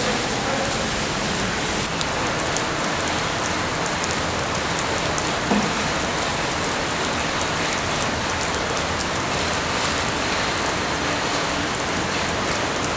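Steady rain falling on wet grass and puddles: an even hiss, with a fine patter of drops that grows crisper about two seconds in.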